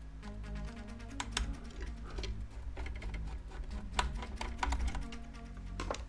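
Irregular small clicks and taps of hands and a small screwdriver on the metal chassis of an eGPU enclosure while a screw is taken out and the case is handled. Background music with a steady low bass runs underneath.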